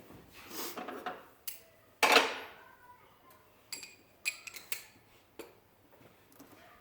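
Metal hand tools clinking and clicking while working at the spark plugs: a loud metallic clatter about two seconds in, then a run of lighter clicks and taps.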